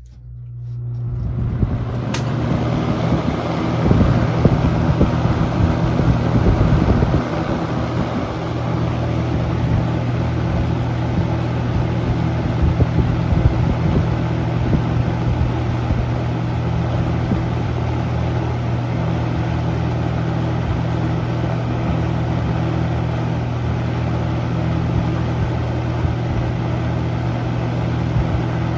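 Toastmaster 4425 box fan switched on and spinning up over a second or two, then running steadily: a motor hum under the rush of air from the blades. A single click about 2 s in.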